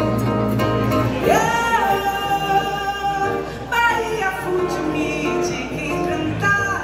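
A woman singing a Brazilian song into a microphone to acoustic guitar accompaniment, holding long notes with vibrato, heard live through the hall's sound system.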